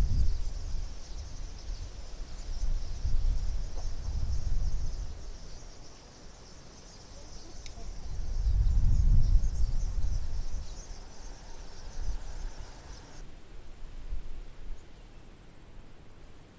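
Wind gusting on the microphone in swells, the loudest near the start and about halfway through, over a steady high-pitched insect chorus that cuts off suddenly about three-quarters of the way in.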